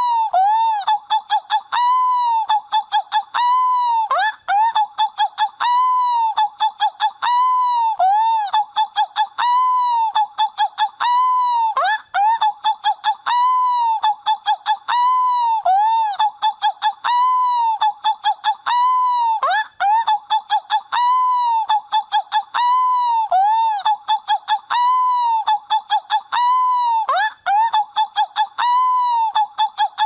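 Seagull calls repeated over and over: long rising-and-falling cries about once a second, between runs of short quick yelps.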